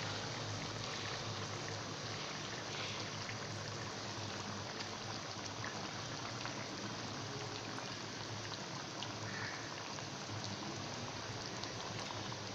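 Chicken and spice masala sizzling in hot oil in a karahi: a steady frying hiss with small scattered crackles.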